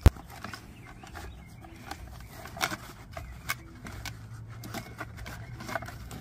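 Hands working a car's fog light bulb and its wiring connector loose from the housing: one sharp click right at the start, then scattered small plastic clicks and knocks.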